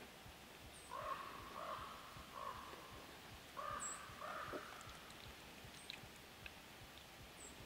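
Corvid cawing, about five short caws in the first half, with a few faint high chirps from a small bird now and then.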